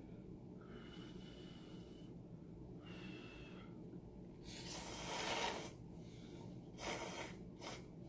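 A person slurping instant cup noodles: one long, loud slurp about halfway through, then two shorter slurps near the end.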